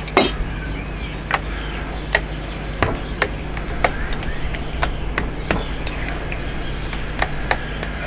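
A metal spoon stirring a thick quark and sour cream mixture in a stainless steel mixing bowl, knocking against the bowl at irregular intervals, about one or two knocks a second. The loudest knock comes right at the start.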